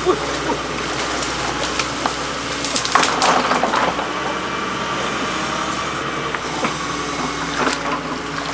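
A motor running steadily, with a burst of crackling and crunching about three seconds in and scattered clicks after.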